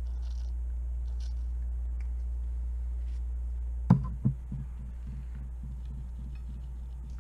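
Short hisses of WD-40 penetrating oil sprayed onto a corroded musket barrel pin, then two sharp knocks about four seconds in as the aerosol can is set down on the table, over a steady low hum.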